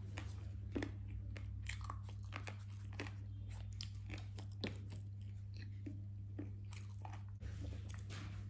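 Close-up chewing and crunching of fried chicken, many small crisp clicks and bites, over a steady low hum.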